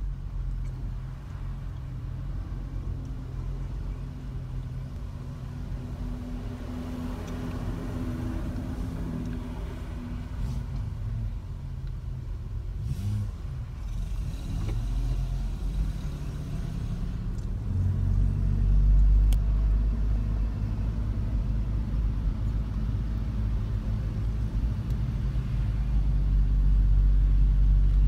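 Car engine and road noise heard from inside the cabin while creeping through slow traffic. The low rumble steps up in loudness about two-thirds of the way in and again near the end.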